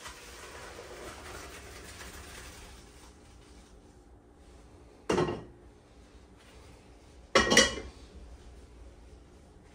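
Boiled macaroni being drained at the sink: hot water pouring out in a steady rush for about three seconds. Then two loud metal clanks of pots and pans, about two seconds apart, the second the louder.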